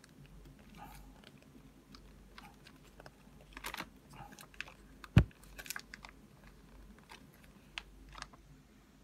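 A plastic tray of Korean instant microwave rice being handled: scattered crinkles and small clicks of thin plastic and film, with one sharper knock about five seconds in.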